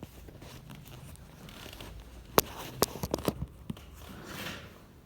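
Handling noise: rustling and scraping with a sharp click about halfway through, followed by a quick run of several clicks and knocks.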